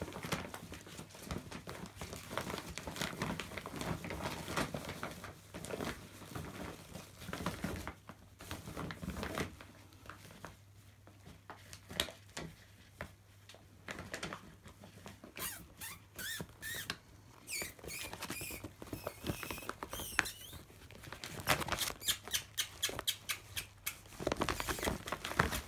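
Chihuahua puppies scrabbling and rustling about in a plastic laundry bag full of clothes: scratchy patter and crinkling, with a few short high squeaks past the middle.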